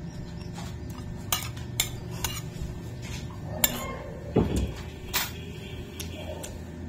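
Metal spoon clinking and scraping against a plate while scooping rice and fried chicken, several separate sharp clinks, with a dull thump about four and a half seconds in.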